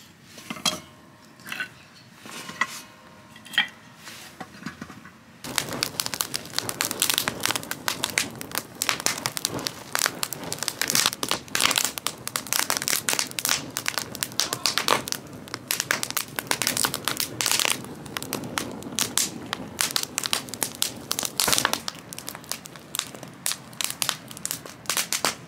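Wood fire of sawn timber battens crackling in full flame, a dense run of pops and snaps starting about five seconds in. Before that, only a few faint clicks.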